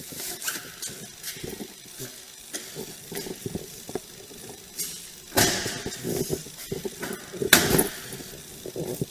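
Scattered soft knocks and rustles with light clinks, with two louder rustling bursts about five and a half and seven and a half seconds in.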